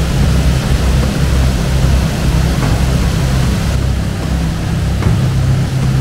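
A waterfall in full flow pouring over rock ledges: a loud, steady rush of white water with a strong low rumble.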